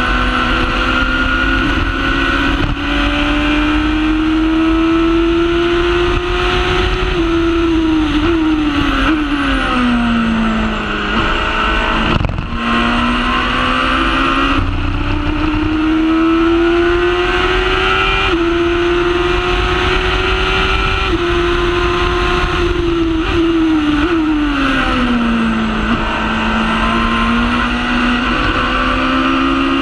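Honda Hornet motorcycle engine in a Formula Predator's single-seater, heard onboard at racing speed over wind noise. Its note climbs slowly through the revs with small steps at gear changes, falls steeply about ten seconds in and again around twenty-five seconds in as the car slows for corners, then climbs again.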